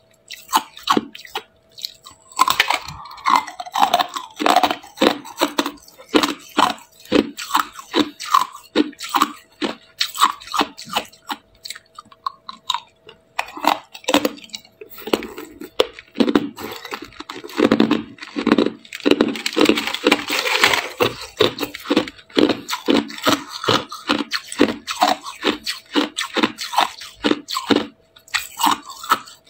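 Hard clear ice being bitten and chewed: a dense run of sharp crunches and cracks, several to a second.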